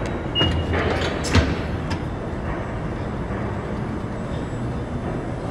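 Subway station ambience: a steady rumbling noise, with a short high beep from a TAP card reader on a fare gate about half a second in, followed by a few sharp clicks.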